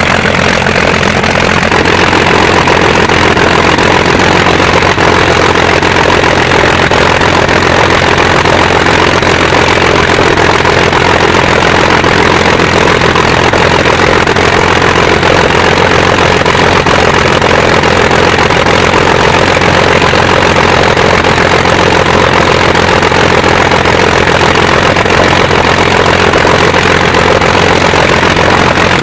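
The V12 piston engine of a Messerschmitt Bf 109-type fighter, running loud and steady at ground idle.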